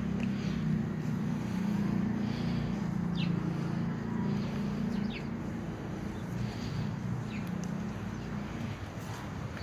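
Garden ambience: a steady low rumble under a handful of short, high, falling bird chirps every second or two.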